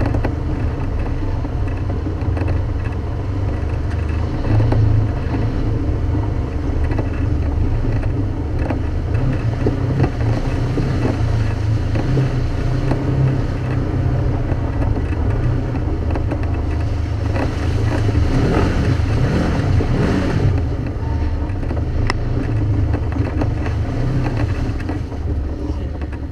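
Off-road vehicle's engine running steadily as it drives a rough dirt trail, the engine revving up and back down about two-thirds of the way through.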